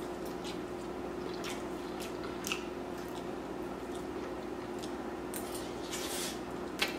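A person chewing a mouthful of chow mein noodles, with soft wet smacking clicks and a sharper click near the end, over a steady low hum.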